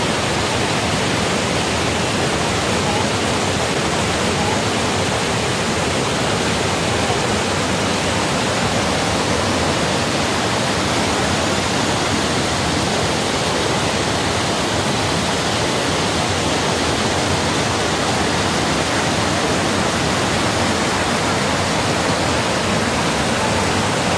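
Rocky mountain river rushing over boulders in white-water rapids: a steady, loud rush of water.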